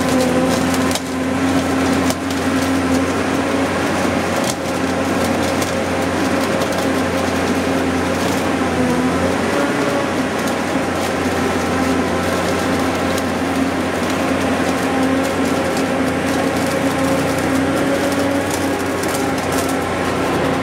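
Holland mobile flash butt rail welder flashing a rail joint: a steady, loud machine hum with irregular crackling as the clamped rail ends arc and throw sparks.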